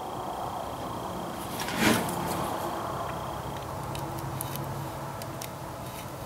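Handling noises from the distributor and tools while the breaker-point gap is being checked. There is one louder knock or clatter about two seconds in and a few faint ticks later, over a steady low hum.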